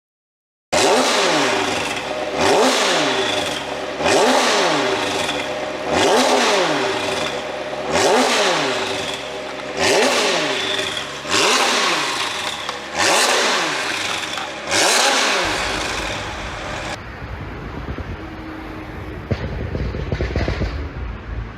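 McLaren 720S twin-turbo V8 revved in a series of about nine sharp blips, roughly one every one and a half to two seconds, each rising and falling with crackling pops on the overrun from an ECU pop tune. After about fifteen seconds the blipping stops and a lower, steady engine rumble follows.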